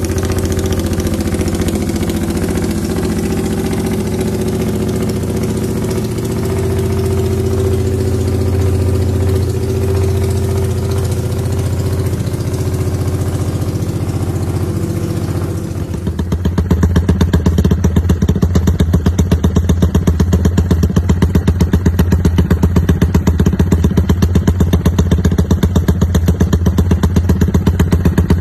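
Yamaha Y15ZR (MX King) single-cylinder 150 cc four-stroke with an aftermarket exhaust, idling. About halfway through, the sound changes abruptly to a louder, evenly pulsing 'rumble idle', the lumpy idle this tune is set up for.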